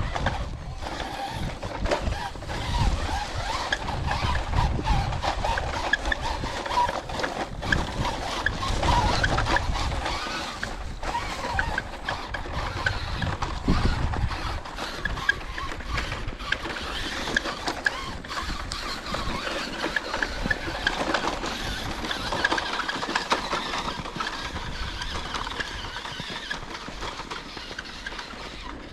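Electric radio-controlled truck driving through snow, its motor and drivetrain whirring steadily, with a heavier low rumble in roughly the first ten seconds.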